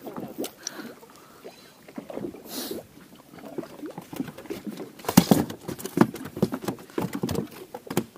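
Irregular clicks and knocks of gear being handled on a small fishing boat, sparse at first and much busier from about five seconds in.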